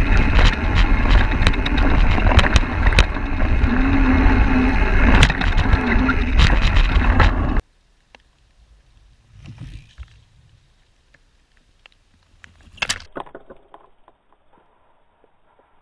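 Lapierre X-Control 227 mountain bike descending a dirt trail, heard from a camera mounted on the bike: a loud rushing rumble of tyres on dirt and air over the microphone, with many sharp clicks and rattles from the bike over the rough ground. It cuts off abruptly about halfway through to near quiet, with two short brushing bursts about two and five seconds later.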